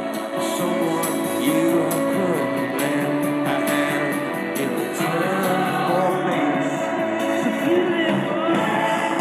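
A rock-pop song with singing and guitar, played back through the headphone output of a Sony D-VM1 portable CD/DVD player. It sounds thin, with no bass. The owner calls this output extremely loud and distorted, stuck at full volume whatever the volume buttons are set to.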